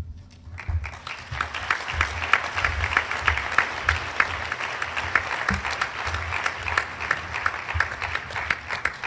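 Audience applauding: many hands clapping together, building up in the first second or so, holding steady, then thinning out near the end.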